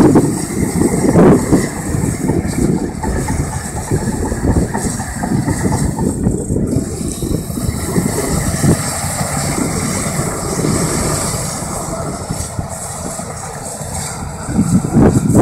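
Komatsu D60 crawler bulldozer's diesel engine running and its steel tracks working as it pushes and levels snow over a pile.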